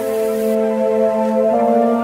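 Background music: sustained held notes, the chord shifting to a new one about one and a half seconds in.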